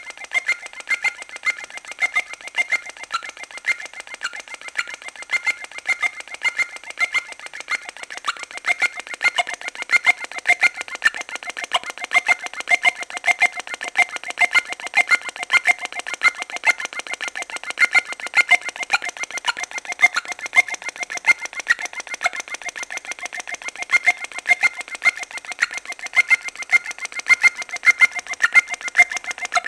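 A malfunctioning intercom unit giving out a rapid, unbroken stream of short electronic chirps at a few fixed pitches. The louder ones come two or three times a second.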